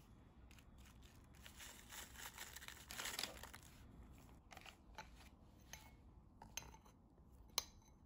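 Soft rustle of powdered royal icing mix going into a glass bowl, then a metal spoon stirring it and clinking against the glass a few times, the sharpest clink near the end. All faint.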